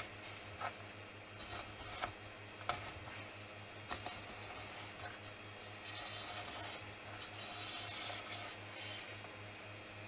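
Fingertips rubbing and scraping leftover residue off a 3D printer's metal print bed in short scratchy strokes, growing busier and louder from about six seconds in.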